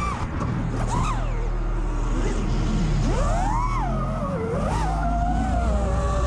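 Motors and propellers of a 6S five-inch iFlight Nazgul5 V2 HD FPV quadcopter whining in flight. The pitch sweeps up and down as the throttle changes, with sharp climbs about a second in and a little past three seconds in.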